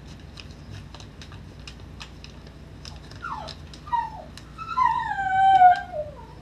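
A dog whining in a run of falling whimpers in the second half, ending in one longer drawn-out whine. Under it, faint crinkling clicks of a coin in a small plastic bag being handled.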